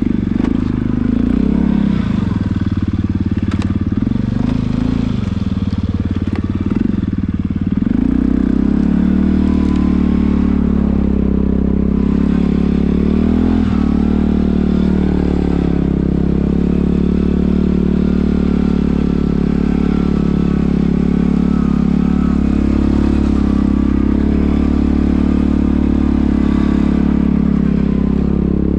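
Quad bike (ATV) engine running under way, its note rising and falling with the throttle, a little louder from about eight seconds in.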